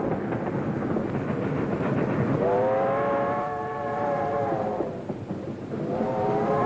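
A train running with a steady rumble while its multi-tone whistle blows a long blast about two and a half seconds in, then starts another near the end.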